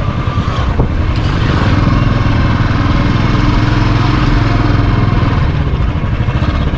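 Royal Enfield Bullet 350's single-cylinder engine running steadily under the rider as the motorcycle rides along, a continuous low thumping. A single brief click sounds about a second in.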